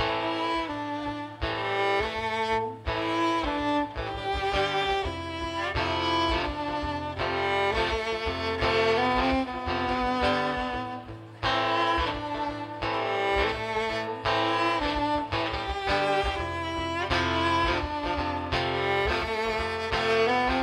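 A live band plays, led by a violin carrying the melody, over a steady beat from drums and bass. The music starts abruptly.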